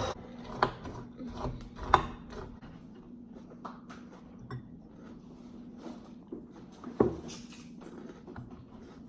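Eating cereal from a bowl: a spoon clicking and knocking against the bowl in scattered taps, with sharper knocks about two seconds in and about seven seconds in, over a faint steady hum.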